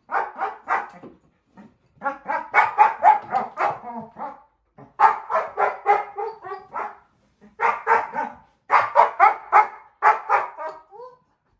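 Four-month-old German shepherd puppy barking playfully in quick runs of short, yappy barks, about four a second, with brief pauses between the runs.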